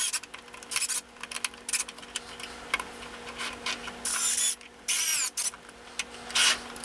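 Small cordless electric screwdriver driving a screw into the vise's 3D-printed plastic handle in short bursts: several brief whirring spurts, the longest about four and five seconds in.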